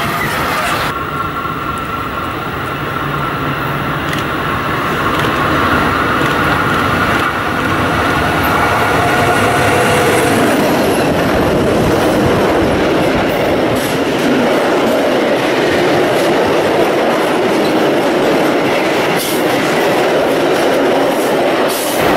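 DB class 151 electric locomotive hauling a freight train past at close range: a steady whine from the locomotive in the first half, then the louder rolling rumble and clatter of heavy freight wagons going by, wheels knocking over rail joints.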